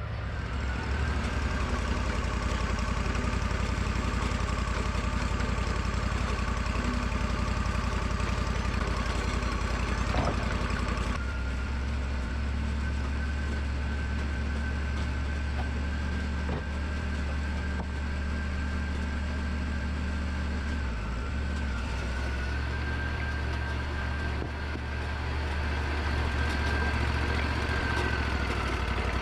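Wood-Mizer LT40 band sawmill running steadily, its engine hum under a high whine that steps up in pitch about a third of the way through and falls back near the end.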